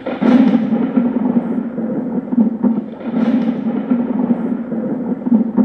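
Loud rumbling soundtrack laid over the closing titles, with a crashing swell just after the start and another about three seconds in.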